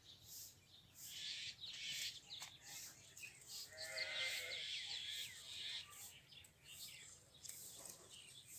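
Livestock bleating: one wavering call about four seconds in, among bursts of hiss and short high chirps.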